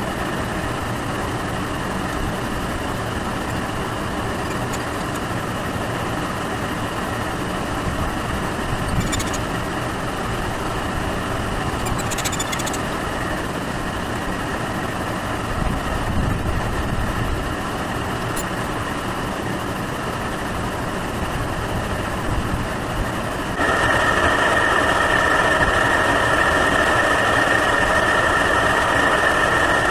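Air conditioner outdoor unit running with a steady mechanical hum and a few light clicks; about 24 seconds in, a louder, steady whir switches on and holds.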